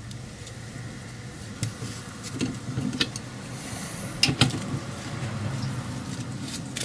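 A bolt being wound by hand against a stack of washers to pull a longer wheel stud into an MGA rear hub, giving a few sharp metallic clicks and clinks, the loudest two close together a little past the middle. A steady low hum runs underneath.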